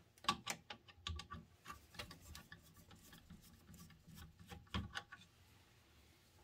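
Screwdriver turning out a small screw from the CD player's mechanism: an uneven run of small clicks and ticks, a few louder ones near the start and about five seconds in.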